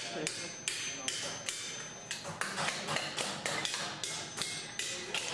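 Hand hammers striking metal on steel anvils: irregular, overlapping strikes, about three a second, from several hammers at once. Some blows leave a short high ring.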